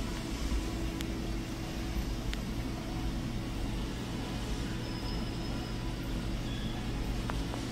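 Steady low hum and rumble of background machinery, with a few faint ticks.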